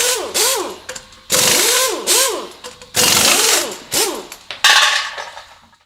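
Power tool run in about six short, abrupt bursts, its whine rising and falling in pitch within each burst over loud rasping noise.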